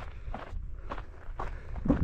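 Footsteps of a hiker on a trail, about two steps a second, over a steady low rumble.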